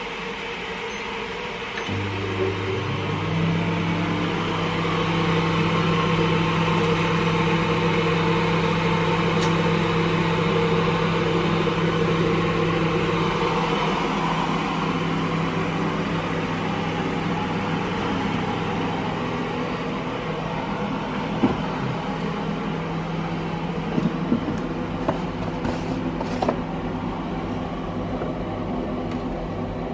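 Microwave oven running after being started from its keypad: a steady electrical hum with its fan, starting about two seconds in, the lowest part of the hum turning to a pulsing about halfway. A few sharp clicks and knocks near the end.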